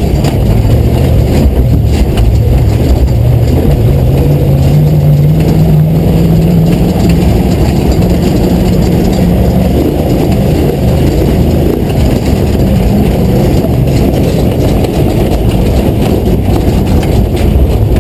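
V8 engine of an off-road Ford Ranger prerunner running under load, heard from inside the caged cab, over a dense low rumble. The engine note climbs a few seconds in and again around the middle.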